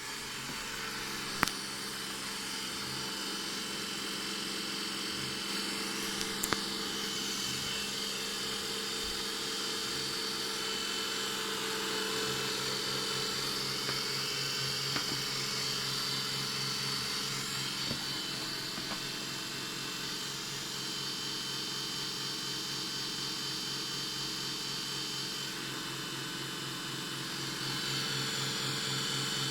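Roborock S6 Pure robot vacuum running with a steady hum, a fast low pulsing and a high whine: a loud, strange noise the owner says it has made since it was new. A sharp click comes about a second and a half in, and small ticks a few seconds later.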